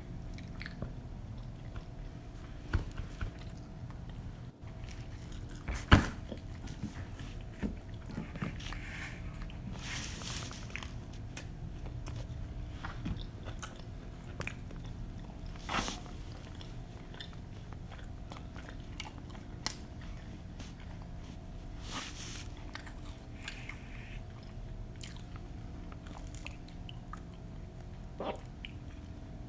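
Close-miked eating sounds: two people biting and chewing pizza, with wet mouth smacks and occasional crunches of crust. A sharp click about six seconds in is the loudest moment, over a steady low room hum.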